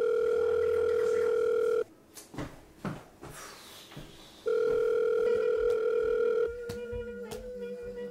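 Telephone ringing tone: a loud, steady electronic tone in two bursts of about two seconds, with a pause between them. A few faint clicks fall in the pause, and the second burst turns weaker near the end.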